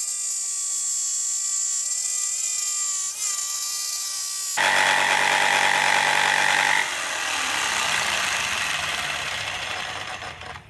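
Bosch electric jigsaw running and cutting through a wooden board. For the first few seconds it is a steady high whine. About four and a half seconds in it switches abruptly to a louder, rougher cutting sound with a low buzz, then tapers off and stops near the end.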